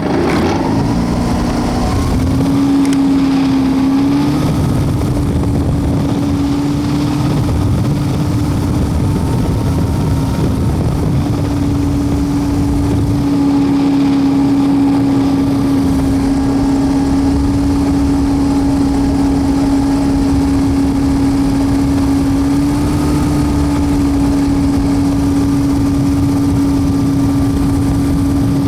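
A WAR Corsair replica's piston engine and propeller running steadily at low power, heard from the cockpit, with a strong steady drone. The engine speed rises slightly about two seconds in, again around eleven seconds, and briefly near the end.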